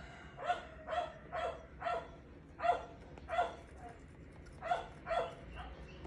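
A dog barking repeatedly, about eight short barks in quick groups.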